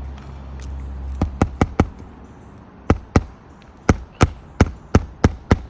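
Sharp tool strikes while roofing nails are worked up out of asphalt shingles: a quick run of four strikes just after a second in, then about eight more spaced a quarter to a third of a second apart. A low steady hum runs under the first second.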